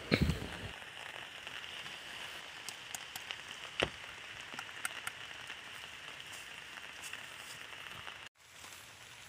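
Steady high outdoor hiss with scattered light crackles and clicks, and one sharper knock about four seconds in; handling noise at the very start, and a brief dropout near the end.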